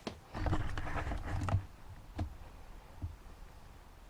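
Camera being handled and repositioned: a click, a second or so of knocking and rubbing with a low thump on the microphone, then two more single clicks.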